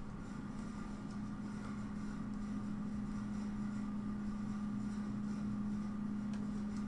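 Steady low electrical hum over background hiss, with a few faint pen taps on a drawing tablet.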